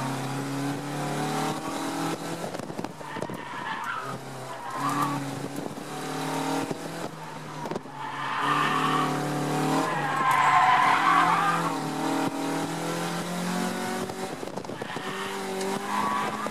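1990 Honda Civic Si's four-cylinder engine, heard from inside the cabin, revving up and dropping back as the driver accelerates and lifts through an autocross course. The tyres squeal through a turn, loudest about ten seconds in.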